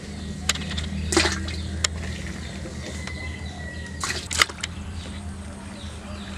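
Pieces of cut fish dropped by hand into an aluminium basin of water: a few separate splashes and knocks against the basin, over a low steady hum.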